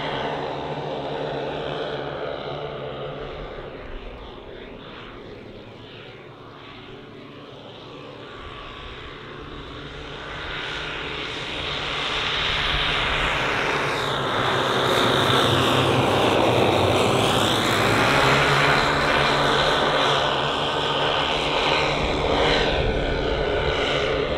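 The twelve 10 cc OS model engines of a 1:10 scale Dornier Do X flying boat model running together in flight. The sound fades as the model flies off, then grows loud as it makes a low pass, its pitch dropping as it goes by about two-thirds of the way through, and stays fairly loud as it climbs away.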